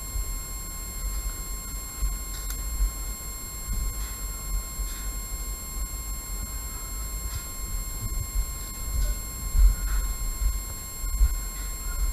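Uneven low rumble on the microphone from wind or handling, over a steady high-pitched electronic whine, with a few faint clicks.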